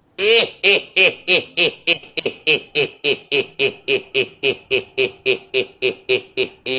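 Looped sound effect: a rapid, very even string of short pitched calls, about four a second, keeping the same beat throughout.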